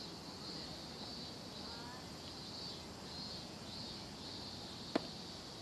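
Steady chorus of insects, a high-pitched pulsing hiss over a faint outdoor background, with one sharp knock about five seconds in.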